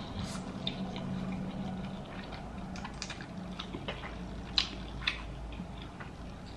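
Close-up eating sounds: soft chewing with small mouth clicks and smacks, and two sharper clicks near the five-second mark, over a low steady hum.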